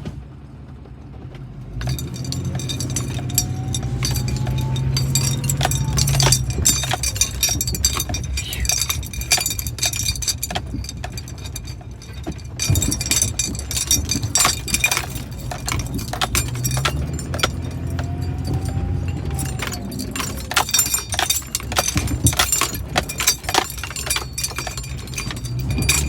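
Chevrolet Duramax turbo-diesel engine heard from inside the cab, accelerating hard twice, with the turbocharger whistle rising and falling over each pull. Loose items in the cab jangle and clink throughout.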